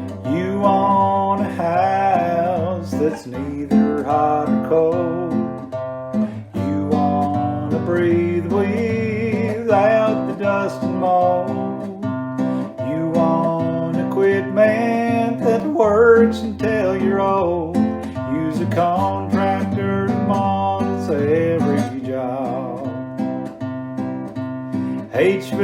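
Acoustic guitar music: strummed chords with a melody line that wavers in pitch above them, playing as an instrumental introduction to a song.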